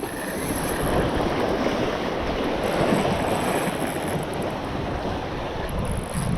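Steady rushing of wind and surf, with wind buffeting the microphone.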